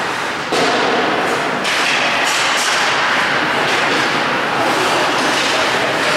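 Ice hockey play heard from behind the rink glass: steady loud rink noise with skates on the ice, and a few sharp knocks of sticks and puck.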